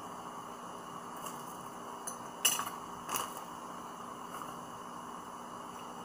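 A metal teaspoon clinking sharply twice, about two-thirds of a second apart, a little before the middle, with a few fainter clicks around them, over a steady room hum.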